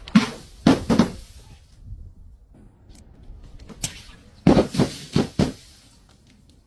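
A run of sharp knocks or thumps: about three near the start and another four about four and a half seconds in.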